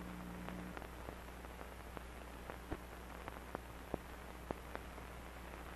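Faint hiss and low hum of an old film soundtrack, with scattered faint clicks and pops.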